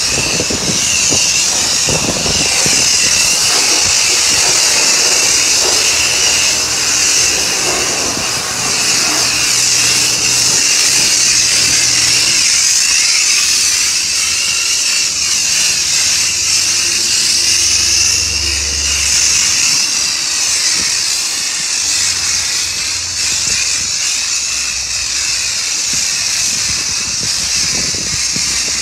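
High-pressure car-wash lance spraying onto a foam-covered car: a steady, loud hiss of the jet. A faint low hum comes and goes underneath.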